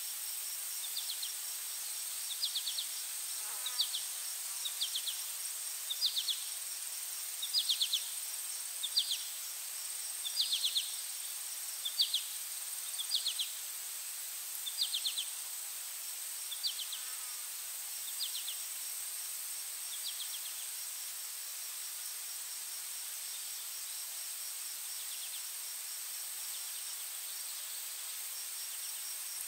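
Insects calling: a steady high-pitched trill throughout, with short pulsed chirps repeating about once a second that fade out after about twenty seconds.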